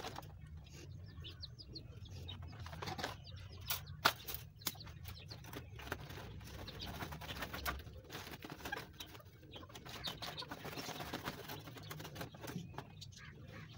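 Caged birds chirping and fluttering their wings, mixed with scattered clicks and knocks as wire bird cages are handled and set down.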